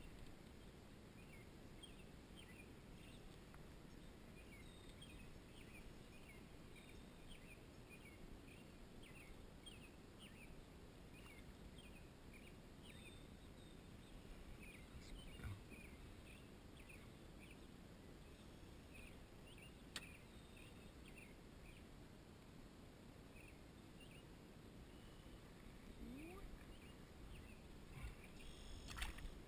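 Quiet outdoor pond ambience: many faint, short high chirps keep going in the background, with a few soft knocks about halfway through and a slightly louder one near the end.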